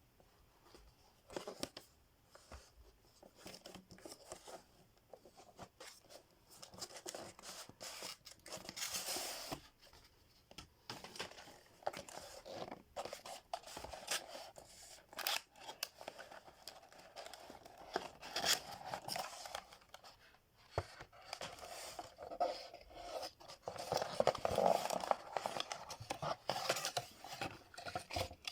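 A keyboard's packaging being handled and opened: irregular rustling, tearing and scraping of cardboard and plastic, with scattered clicks and knocks.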